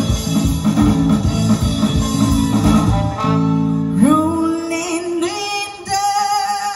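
Live band playing loudly with drums, bass and guitars; about three seconds in the beat drops out for a held chord, and a long note slides up and is held.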